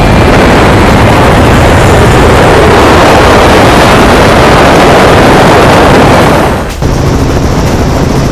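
Loud, steady roar of engines and rushing wind. It cuts off suddenly about seven seconds in, and a lower, steadier hum carries on.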